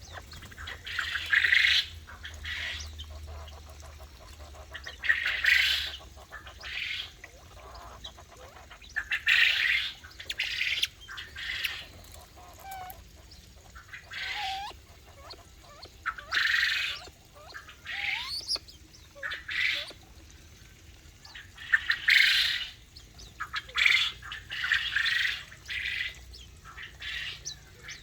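Aviary birds calling: repeated harsh squawks, each about half a second to a second long and coming every few seconds, with faint short chirps between them.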